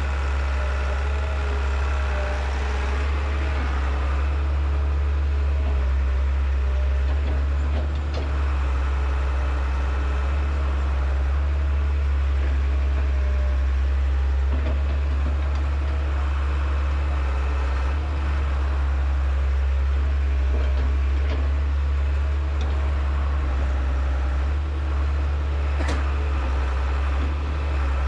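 Diesel engine of a JCB digger running steadily, a deep low drone, with a few faint clicks and knocks now and then.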